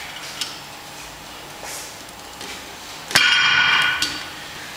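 Weight plates on a loading pin, hooked to a Rolling Thunder grip handle, clank once about three seconds in and ring for most of a second. A light clink comes shortly after the start.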